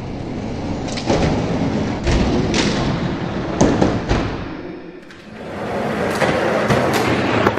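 Die-cast Hot Wheels monster trucks rolling down orange plastic track with a continuous clattering rumble and several sharp knocks as they run over the stepped drops and joints. The rumble dips about five seconds in, then rises again with more knocks.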